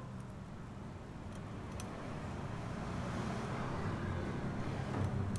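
A low, steady engine hum that slowly grows louder, with a few faint metallic clicks.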